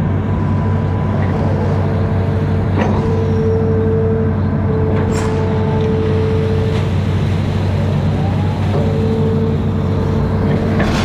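Amphibious excavator's diesel engine running steadily under work, with a whine that comes and goes and a couple of brief knocks.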